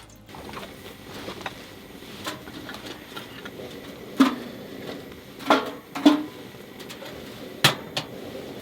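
Firewood burning in a wood stove: a steady hiss with a few irregular sharp cracks and knocks, the loudest near the middle and toward the end.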